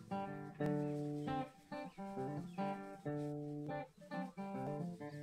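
Background guitar music: plucked and strummed chords changing about every half second.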